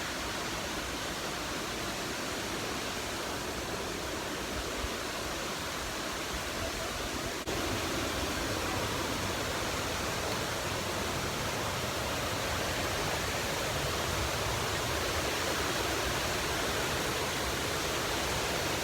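Waterfall rushing steadily, a steady roar of falling water that grows a little louder after a cut about seven and a half seconds in.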